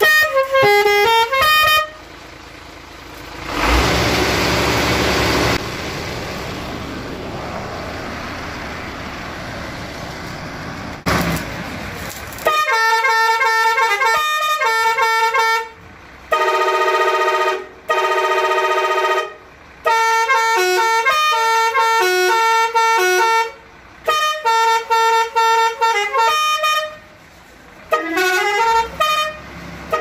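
A truck's multi-trumpet air horn set (pressure horn) playing tunes: loud horn notes stepping from pitch to pitch, with quick rising slides, in several runs separated by short gaps. Early on the horns stop for about ten seconds and a steady rushing noise takes their place.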